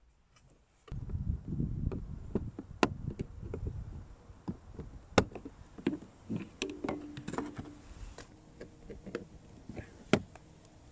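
Hands working on a car's plastic interior trim: an irregular run of sharp clicks and knocks over low rustling, starting about a second in, with the loudest knocks a little past halfway and near the end.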